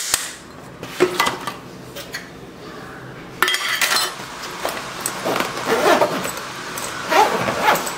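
Lunch-box containers clinking and knocking as a plastic-lidded box is pressed in beside stainless-steel tiffin boxes, followed by the fabric lunch bag being handled and its zipper drawn closed.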